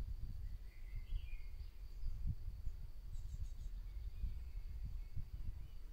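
Light wind buffeting the microphone in uneven gusts, with a few faint bird chirps about a second in and a thin steady high tone underneath.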